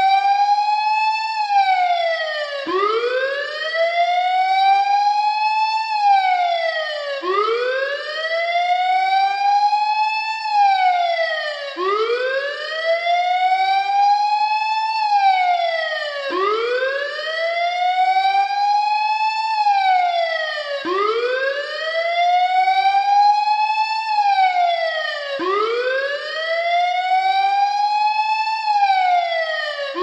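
Mock emergency-alert warning siren wailing in a repeating cycle. Each cycle the pitch climbs for about a second and a half, then drops sharply, and this comes round about every four and a half seconds.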